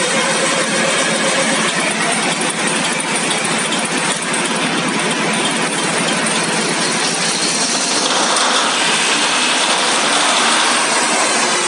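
Deutz 620 V12 engine running steadily with a loud, dense mechanical clatter. A higher hiss joins in about eight seconds in and fades about three seconds later.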